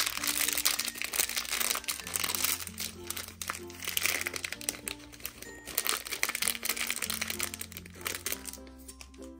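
Plastic packaging crinkling and crackling as small toy accessories are pulled out of a blind box, stopping shortly before the end. Background music with a slow bass line runs underneath.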